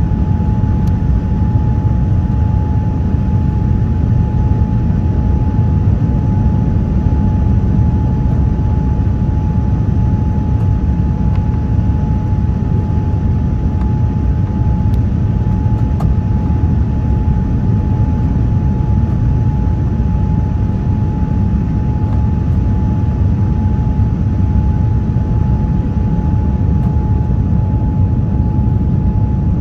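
Steady cabin noise inside a Boeing 787-9 airliner descending with flaps extended: a low rumble of its GE GEnx engines and airflow, with a steady whine running through it.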